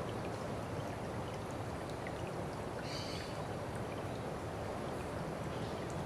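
Water of a stream running steadily, with a brief higher sound about three seconds in.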